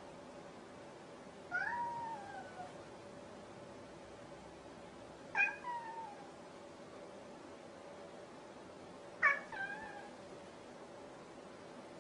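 A domestic cat meowing three times, about four seconds apart. Each meow is short and slides down in pitch at the end.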